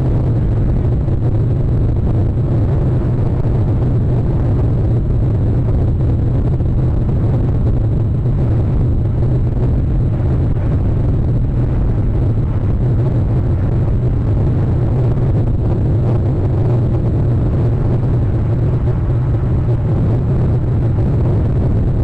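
Steady low rumble, even and unbroken, with no calls heard.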